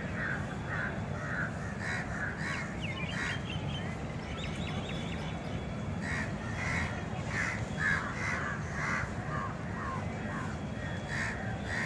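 Crows cawing over and over in bursts, with a short lull about four to six seconds in, over a steady low rumble.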